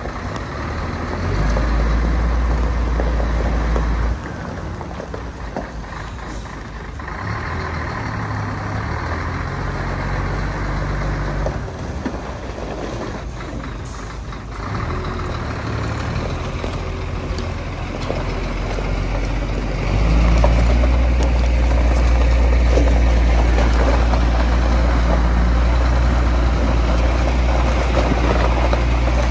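Scania vacuum tanker truck's diesel engine running as the truck drives slowly, its note rising and falling through the middle, with a short hiss about halfway through. The engine runs louder and deeper for the last third.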